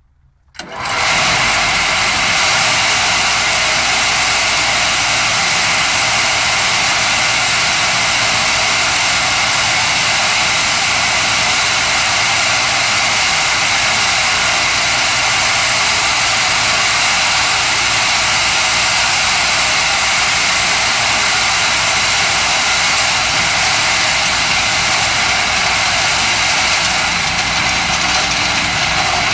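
Homemade vibrating topsoil screener running: a loud, steady machine noise with a fast, even shudder underneath, coming in suddenly about half a second in.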